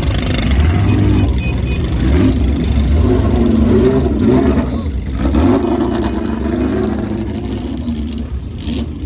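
Classic racing car engines running at low speed, their note rising and falling with light throttle as the cars roll by.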